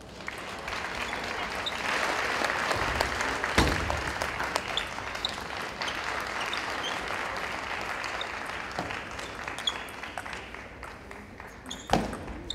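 Audience applauding, swelling about two seconds in and thinning toward the end, with a couple of sharp knocks, one a few seconds in and one near the end.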